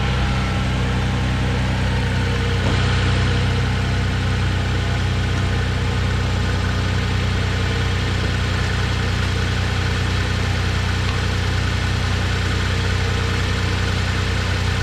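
Toyota 1FZ-FE 4.5-litre inline-six idling steadily on a cold start after a top-end rebuild, nice and quiet.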